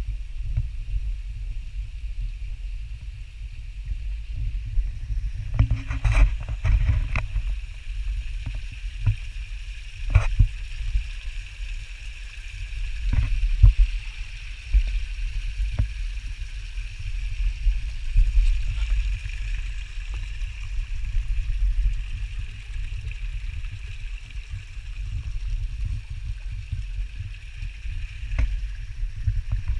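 Rumble of wind and handling on a handheld GoPro's microphone, with scattered knocks and scrapes from the camera pole and shoes on rock, in a cluster about six seconds in and singly later. A faint steady hiss sits behind it.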